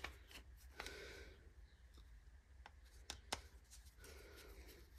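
Near silence with a few faint clicks and scrapes: a screwdriver working a sticky jet loose from an old carburetor.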